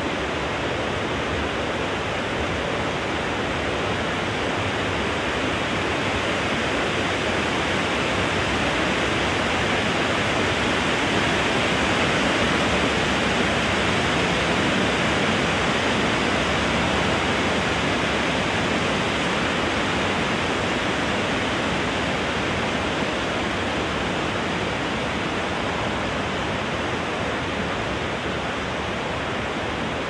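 Wind blowing through trees, a steady rush that swells a little around the middle and eases off again.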